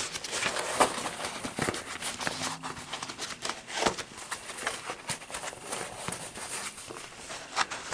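A stiff lined fabric bag being worked right side out by hand: irregular rustling and crinkling with scattered small clicks and taps.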